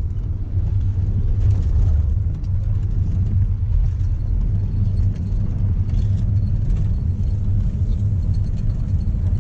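Steady low rumble of a moving vehicle, engine and road noise heard from inside the cabin.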